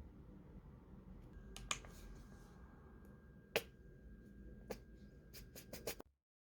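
A few scattered sharp clicks and taps over a low steady hum, with a faint steady high tone behind them; a quicker run of clicks comes near the end, then everything cuts off abruptly.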